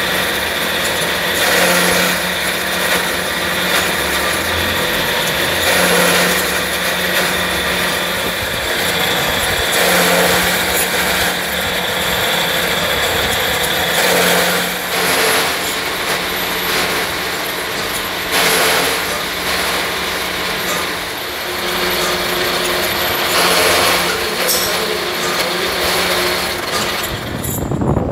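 Motor-driven vertical spindle machine running and cutting a stack of steel oil-filter end caps: a steady hum with metal-cutting noise that swells and eases every few seconds.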